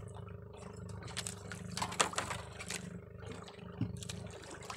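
Steady low drone of a motor running throughout, with a few light clicks and taps as a fishing handline is pulled in by hand and wound onto a hand spool.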